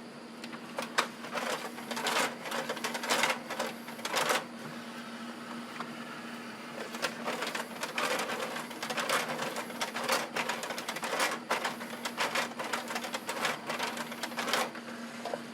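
JVC 7-disc CD/DVD changer's loading mechanism clicking and clattering in two spells, from about a second in to about four seconds and again from about seven seconds to near the end, over a steady low hum. The player is cycling through discs it cannot read, a fault the owner puts down to a worn laser pickup.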